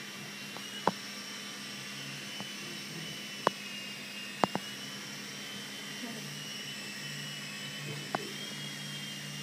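Blade micro RC helicopter's electric motor and rotor whining steadily, the pitch wavering a little as it hovers. Several sharp taps cut through it, a double one about four and a half seconds in.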